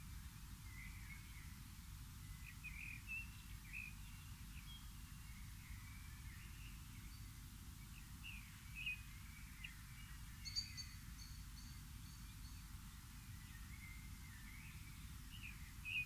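Faint chirps and calls of small woodland birds, scattered throughout, with a short run of high, evenly repeated notes about ten seconds in, over a steady low background rumble.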